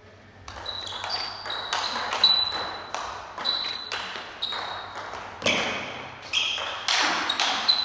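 Table tennis rally: the celluloid ball clicks in quick alternation off the table and the players' paddles, each hit with a short high ring. The hits begin about half a second in, and there are a few louder hits near the end.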